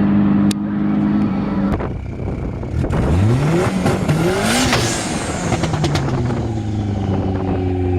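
Car engine running at a steady note, then rising sharply in pitch about three seconds in as it revs or accelerates, before dropping back to a lower steady running note.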